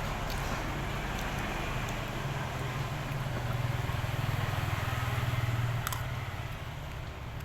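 A low engine-like hum over a steady hiss, swelling louder about halfway through and easing off near the end.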